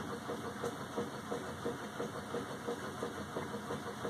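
A machine running steadily, with a soft, regular knock about three times a second.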